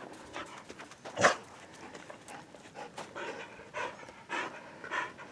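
Dog barking: one loud bark about a second in, then a run of shorter calls repeating about every half second.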